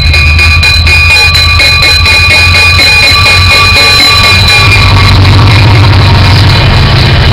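MBTA commuter train's diesel locomotive rumbling loudly, with a high steady squeal of brakes and wheels as the train slows into the station. The squeal fades out about five seconds in and leaves the engine running.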